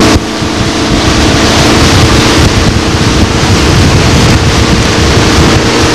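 Motorboat engine running steadily at towing speed, heard from on board, with wind buffeting the microphone and the rush of water from the wake.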